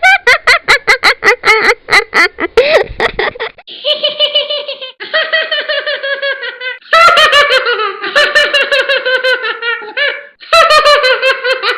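High-pitched cartoon character laughter, a talking-app laugh sound effect, played in about four bouts. The first bout is a rapid giggle of about five pulses a second; the later bouts slide down in pitch.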